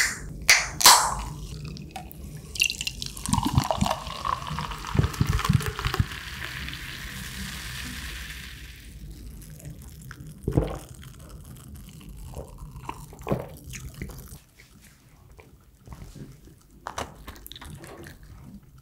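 A small aluminium cola can opened with a sharp crack and hiss at the start, then cola poured into a glass, fizzing steadily for about seven seconds. After the pour, a few gulps and small knocks as the glass is drunk from and set down.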